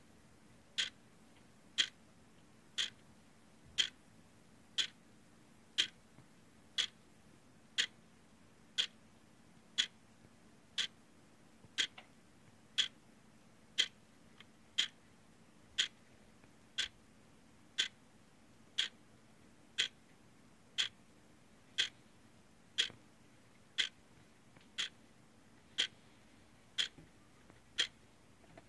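Clock ticking steadily, about once a second, over a faint low hum.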